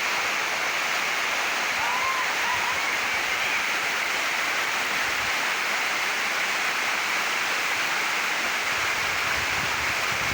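Waterfall, the steady rush of falling water.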